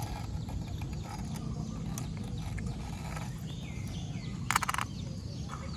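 Yamaha NMAX's CVT drive belt being worked off the pulleys by hand: light rubbing and small clicks of belt on pulley, with a short rattle of ticks about four and a half seconds in.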